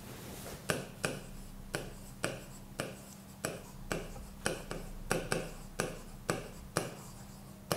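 Stylus tip tapping and clicking on the glass of an interactive touchscreen display while a word is handwritten: faint, sharp clicks about two a second, over a low steady hum.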